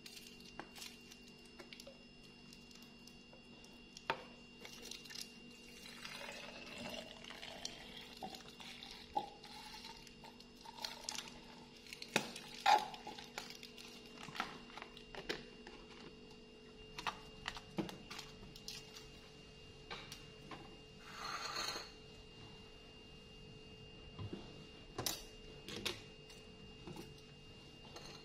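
Milk poured from a small carton into a plastic baby bottle, the pour rising in pitch as the bottle fills. Light clicks and knocks come from the cartons and bottle being handled on the counter.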